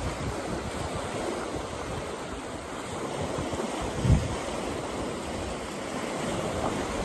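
Choppy lake waves washing and breaking on a rocky shore, with wind rushing over the microphone. A brief low gust thump on the microphone comes about four seconds in.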